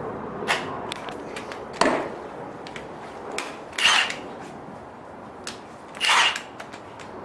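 Hand tools and metal parts working on a screw compressor: scattered sharp metal clicks and knocks, a louder knock about two seconds in, and two short rasping bursts about four and six seconds in.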